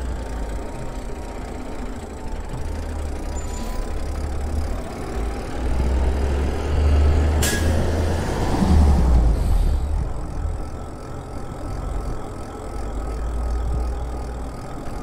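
Wind buffeting the microphone of a moving Lyric Graffiti e-bike, with the electric motor's thin, steady whine underneath. About halfway through, a box truck passes going the other way, with a short, sharp hiss just before it goes by.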